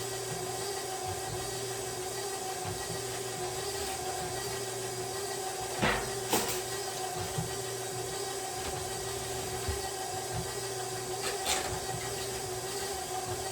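Stand mixer running steadily with the paddle attachment beating cake batter, a constant motor whine and hum. A few sharp knocks stand out about halfway through and again near the end.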